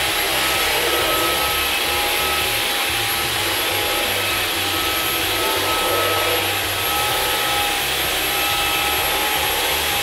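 Dyson cordless stick vacuum running steadily, a rush of air with a steady whine over it, as its cleaner head is pushed over carpet.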